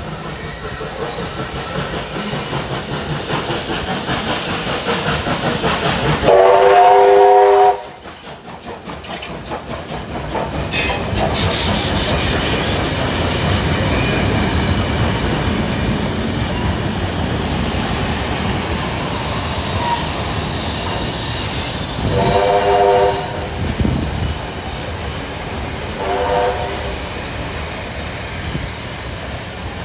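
Heritage train of steam locomotive 3801 and Class 42 diesel 4201 passing slowly on the rails: a rumble builds as it approaches, then a loud chord of several notes is sounded for about a second and a half. Wheels clatter and squeal as the tender and carriages roll by, with a hiss as the locomotive passes and two more, shorter chords later.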